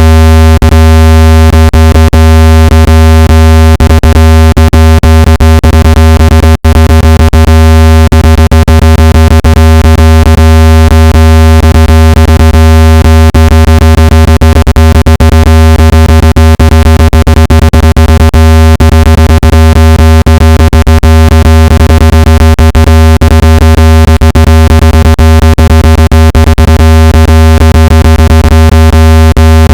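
Loud, steady, low-pitched synthetic buzzing tone with many overtones, cut by frequent clicks and one brief dropout about six and a half seconds in: a speaker-cleaning tone played to shake water and dust out of a phone speaker.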